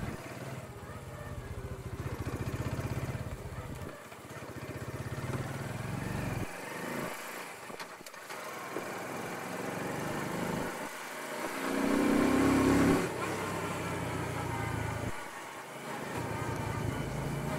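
Motorcycle engine running on the move. Its sound drops away several times and picks up again, and it is loudest about two-thirds of the way through.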